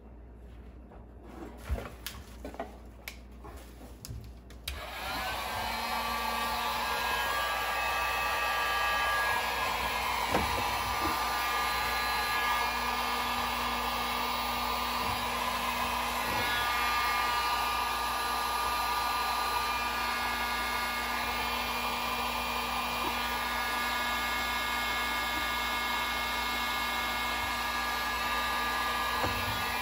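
A few handling clicks and knocks, then about five seconds in an electric heat gun switches on and runs steadily, its fan blowing hot air onto a stiff old bilge pump hose to soften it.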